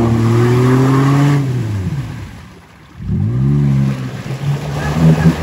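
Off-road vehicle's engine revving hard under load, easing off about two seconds in, then revving up sharply again as the driver tries to power through.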